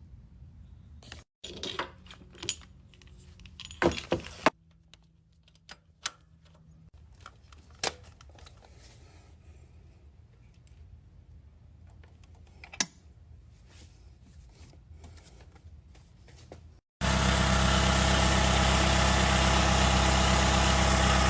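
Scattered clicks and light knocks of hand work, then, after an abrupt cut near the end, the Toyota Camry's four-cylinder engine idling steadily.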